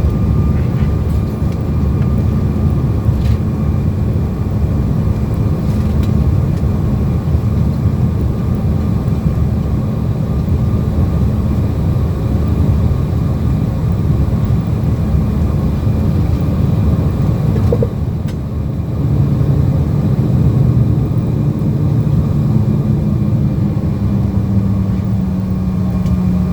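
Jet airliner cabin noise on the ground after landing: a steady, loud rumble of engines and airflow with a low hum, easing briefly about eighteen seconds in.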